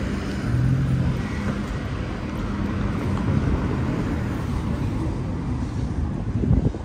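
Road traffic passing on a street: car engines humming with tyre noise, swelling about half a second in.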